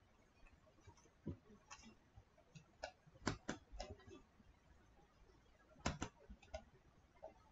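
Faint, scattered clicks of a computer mouse and keyboard, a small cluster about three to four seconds in and another about six seconds in, over quiet room tone.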